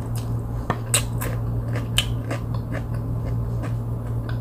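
Close-up eating sounds of crisp, well-fried chicken eaten by hand: irregular sharp crackles and wet smacks from biting and chewing, the loudest about one and two seconds in. A steady low hum runs underneath.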